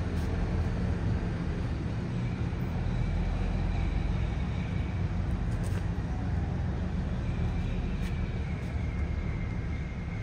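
Steady low rumble of outdoor city ambience, with road traffic in it.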